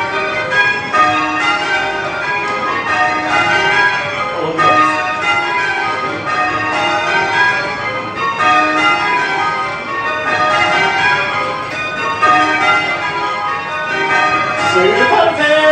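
Change ringing on a light ring of tower bells: an unbroken, even stream of bell strikes, the bells sounding in constantly shifting order as spliced methods are rung on eight.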